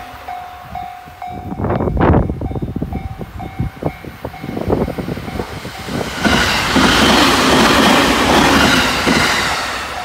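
A level-crossing warning bell rings as a steady repeated tone, with scattered clacks of wheels over rail joints. About six seconds in, a JR 209-series electric commuter train runs past close by with loud wheel and running noise.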